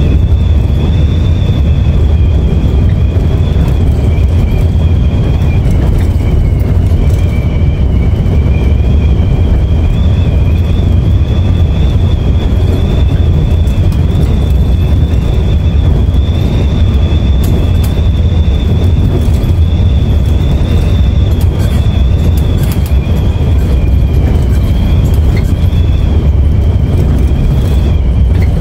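Coach bus driving at speed on the highway, heard from on board: a loud, steady low rumble of engine and road with a steady high-pitched whine over it.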